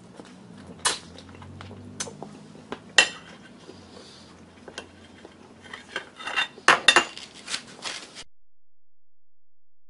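Chicken wing bones clinking on porcelain dishes as they are set down: a few spaced clinks, then a quicker run of clinks later on.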